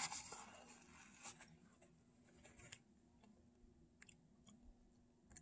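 Faint rustle of a paper towel wiped over the mouth in the first second, then quiet chewing with a few small mouth clicks.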